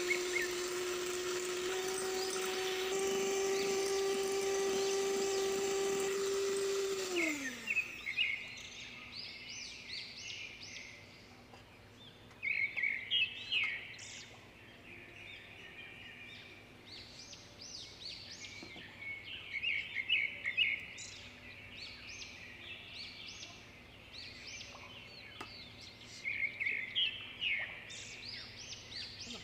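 Electric hand mixer beating egg whites, its motor running steadily, then winding down with a falling pitch about seven seconds in as it is switched off. After that, bird chirps come in short clusters every few seconds over faint background noise.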